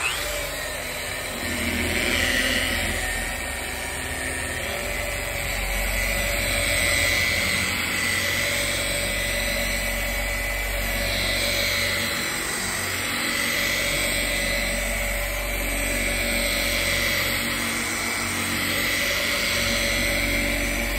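Electric long-throw random orbital polisher, fitted with a Trizact 1500-grit abrasive disc, damp-sanding automotive clear coat. It starts up at once, then runs with a steady whine whose level wavers a little as the pad is worked across the panel. This is the colour-sanding stage that flattens orange peel out of the clear coat.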